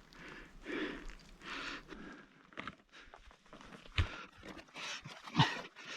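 A climber's heavy breathing, with footsteps crunching and scraping on loose volcanic rock and a few sharp clicks, the strongest about four and five and a half seconds in.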